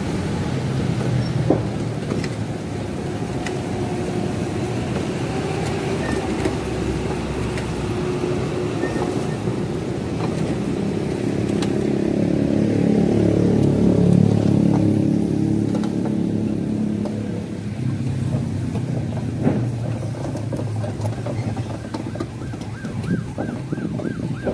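Loaded narrow-gauge sugarcane wagons rolling past on light rails: a steady rumble with scattered sharp clicks of wheels on the track. An engine's hum grows to its loudest about halfway through, then fades.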